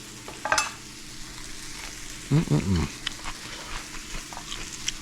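Sliced onions and peppers sizzling in a hot frying pan, with the clicks and scrapes of a utensil stirring them. A short wavering vocal sound comes about two seconds in.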